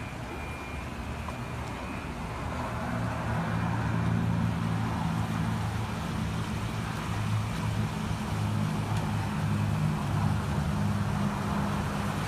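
Car driving slowly through standing floodwater, its engine running with a steady low hum that swells a couple of seconds in and again later as it passes.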